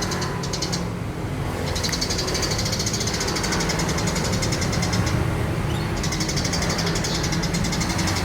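Eurasian tree sparrows chirping in fast, continuous runs, broken by short pauses about a second in and again around five seconds in, over a steady low engine-like hum.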